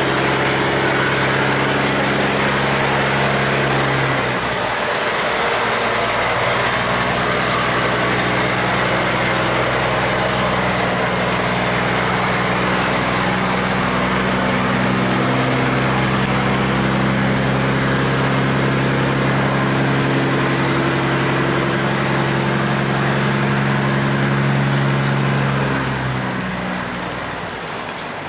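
Tugboat's diesel engine running loud and steady with a deep hum. It dips briefly about four seconds in and drops away a couple of seconds before the end.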